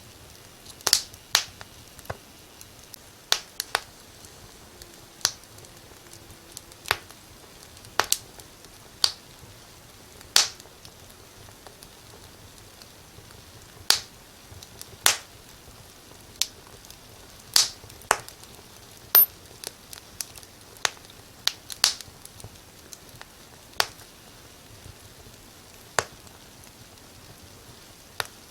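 Wood fire burning in a fireplace, crackling: irregular sharp pops and snaps, some in quick pairs, over a low steady hiss.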